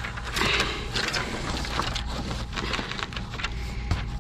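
Round metal-framed mirrors and a piece of cardboard being handled, giving a run of scraping, rustling and light knocks.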